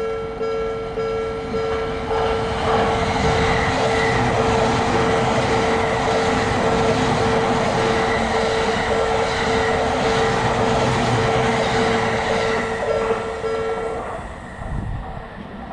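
Japanese railroad crossing warning bell ringing its steady 'kan-kan' while a train rushes past. The train noise builds about two seconds in, and bell and train die away about fourteen seconds in.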